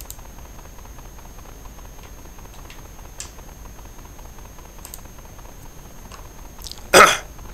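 Quiet room tone with faint, scattered light clicks, then one short, loud rush of noise near the end.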